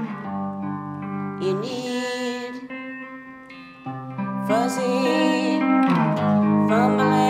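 Les Paul–style electric guitar played clean, picked chords and notes ringing and changing every second or so. It eases off to a quieter spell near the middle and comes back stronger about four seconds in.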